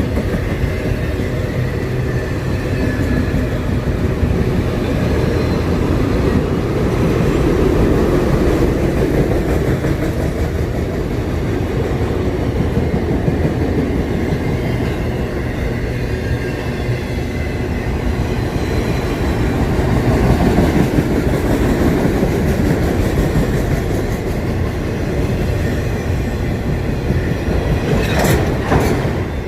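Train cars rolling past on the rails: a loud, steady rumble of wheels on track, with a few sharp clacks near the end.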